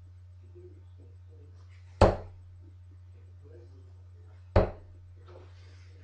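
Two darts thunking into a bristle dartboard, the first about two seconds in and the second about two and a half seconds later, each a single sharp hit. A steady low hum runs underneath.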